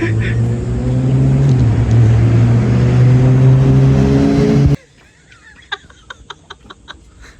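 Motorcycle engine running under way with wind rush. Its pitch slides and steps as it goes. About five seconds in it cuts off suddenly, leaving a quiet background with a few faint clicks.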